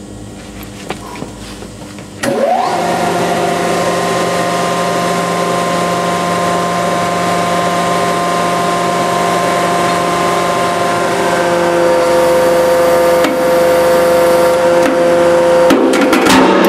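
500-ton hydraulic press's pump motor starting suddenly about two seconds in and running with a steady hum of several held tones, growing slightly louder as the ram squeezes a stack of books. In the last second sharp cracks begin as the books start to burst under the load.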